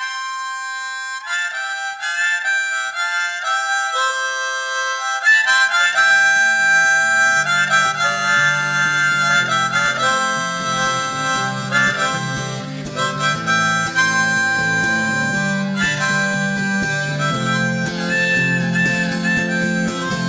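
Music led by a harmonica playing sustained, held notes. About five seconds in, a lower accompaniment joins under it.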